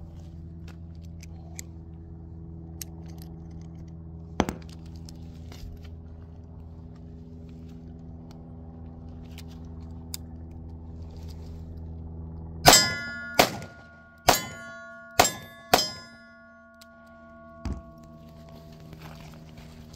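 Five revolver shots fired quickly, each followed by the ringing of a steel plate target being hit. Before them come small clicks of cartridges being handled and loaded, over a steady low hum. Near the end there is a single knock, the revolver being set down on the table.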